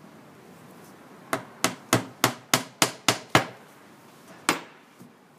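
Hammer driving a glued wooden dowel into a drilled hole in a fir table: a quick run of about eight sharp blows, about three a second, then one more blow about a second later and another at the end.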